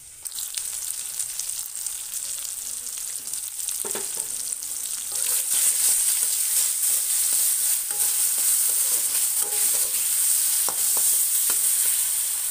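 Chopped tomatoes, green chillies and garlic sizzling in hot oil in a kadai while a spatula stirs and scrapes the pan. The sizzle grows louder about five seconds in.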